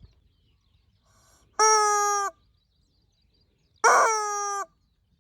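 A rubber chicken squeezed twice, giving two loud, shrill squawks of under a second each, with steady pitch and a short gap between them.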